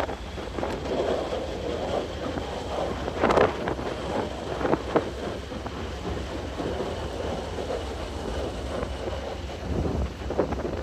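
Wind buffeting the microphone aboard a passenger ferry under way, over the vessel's steady low engine rumble and rushing water. There are a few louder gusts, the strongest about three seconds in.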